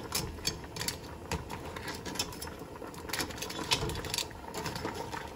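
Crabs being turned over in a pot of curry with a spoon: hard crab shells and the spoon clicking and knocking against each other and the pot at an irregular pace.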